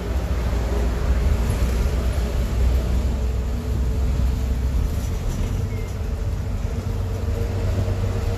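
A moving bus heard from inside the cabin: a steady low engine and road rumble with a faint constant hum.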